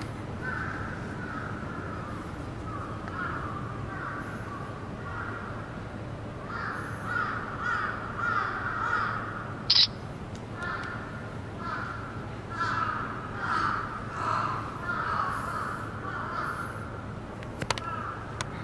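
Crows cawing over and over in clusters of calls, over a steady low hum. A brief, sharp, high-pitched sound about ten seconds in, and a couple of clicks near the end.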